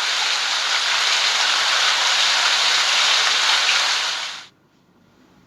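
Rain falling steadily, an even hiss that fades out and stops about four and a half seconds in.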